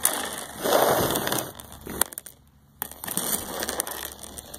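Small pebbles crunching and scraping on a plastic playground slide as a toddler handles them. The noise comes in two stretches of about two seconds each, with a short pause between.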